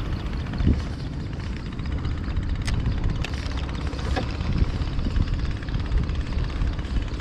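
Small petrol engine of a wooden fishing boat running steadily with a low rumble, with a few faint ticks over it.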